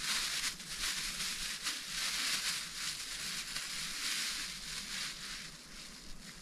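Uneven rustling hiss that swells and fades over several seconds, dying down near the end.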